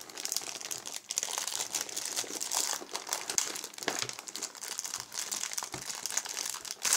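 Foil and plastic toy wrappers crinkling continuously as hands unwrap them, a dense crackle of many small clicks.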